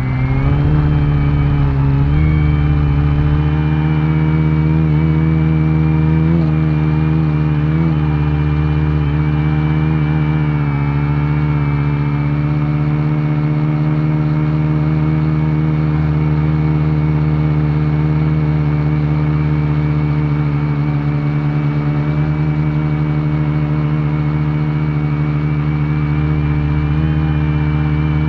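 Multirotor drone's electric motors and propellers humming steadily, heard close from the drone's own camera, with the pitch wavering briefly a few times in the first dozen seconds as the motors correct and manoeuvre.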